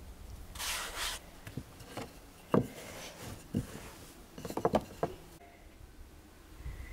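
A long wooden rolling pin working a thin dough sheet on a wooden board: a brief rustle, then a series of light wooden knocks and clicks, several in quick succession near the end.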